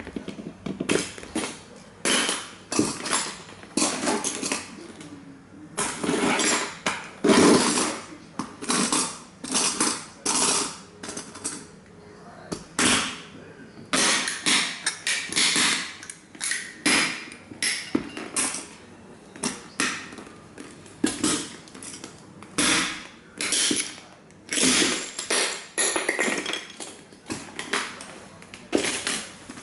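Model toy trains being stomped and crushed under cowboy boots on a hard board: irregular cracks, crunches and scrapes of breaking plastic and metal parts, some single stomps and some longer grinding stretches.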